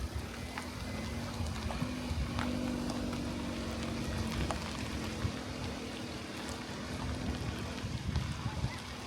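Low engine-like rumble with a steady hum that swells in after about half a second and fades out near the end, with scattered small clicks and knocks.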